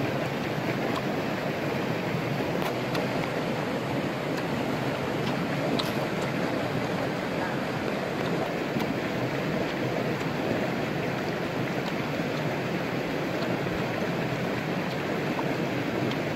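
Steady rushing of a flowing stream, with a few faint clicks over it.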